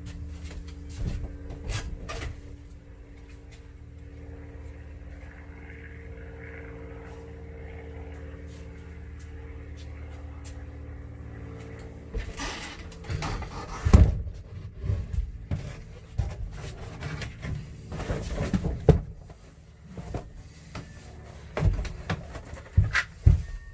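A steady low hum for about the first half, then a run of knocks and clatters as a stiff FRP (fibreglass-reinforced plastic) wall panel is handled and bumped against the walls while it is dry-fitted.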